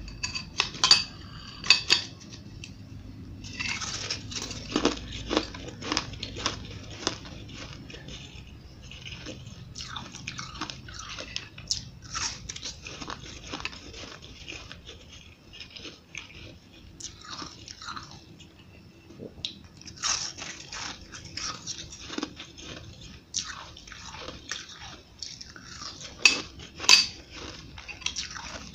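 Close-up crunching and chewing of mouthfuls of powdery refrozen ice, a dense run of sharp crackly crunches. The loudest bites come about a second or two in and again near the end.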